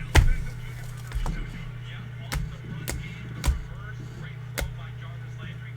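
A handful of sharp taps and clacks from trading cards and their plastic holders being handled and set down on a table, over a steady low hum.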